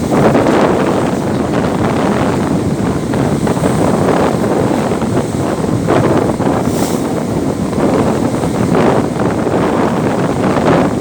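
Strong wind buffeting the microphone in loud, continuous gusts that rumble and rise and fall.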